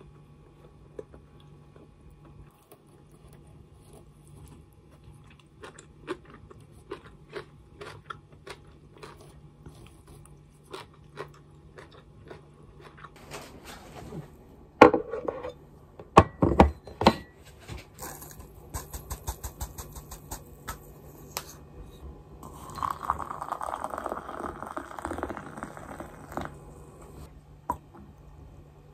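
Eating sounds: chewing and light clicks, a few at a time. About fifteen seconds in, a plate and a glass mug are set down on a table with several loud knocks. Later, liquid is poured into the glass mug for a few seconds.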